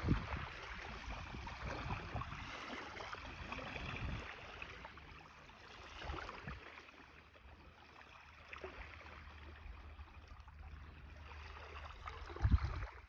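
Wind buffeting the microphone outdoors: a steady rushing hiss with gusty low rumbles that come and go, easing off somewhat in the middle.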